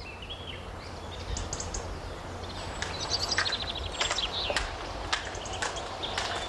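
Hooves of a pack animal clopping at a walk, starting about three seconds in at roughly two steps a second, with small birds chirping.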